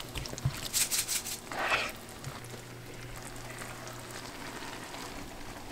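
Creamy lemon pasta sauce with sliced onions sizzling in a skillet, with a few short scrapes and stirs of a wooden spoon in the pan in the first two seconds, then a steady sizzle.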